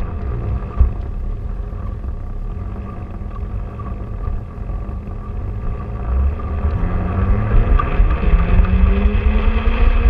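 Small electric motor of a self-propelled LGB garden-railway wagon whining as it runs, with its wheels rumbling on the track. The whine rises in pitch over the second half.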